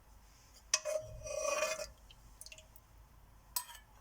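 Chicken soup being transferred from the pressure cooker into a bowl, a metal utensil clinking and scraping against the pot: a sharp clink under a second in, about a second of scraping, and another clink near the end.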